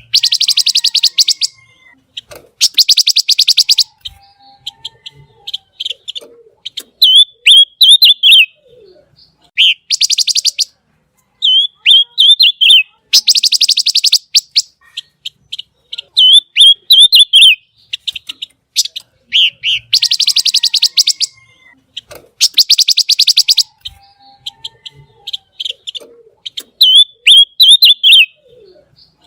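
Pancawarna songbird singing hard. Long, rapid, buzzing trills alternate with short, sharp, twisting whistled phrases, the sequence repeating about every ten seconds.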